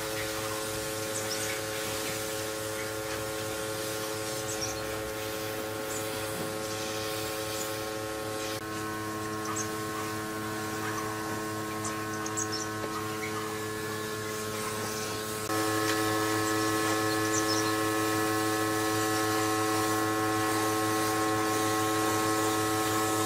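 Steady electric motor hum with several fixed tones, typical of a workshop power tool running. The tones shift abruptly about nine seconds in and again about fifteen seconds in, where the hum gets louder. A few faint clicks sound over it.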